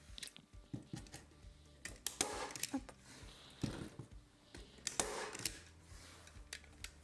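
Hand-held furniture stapler driving staples through mesh into a wooden countertop: several sharp clacks, roughly a second or more apart.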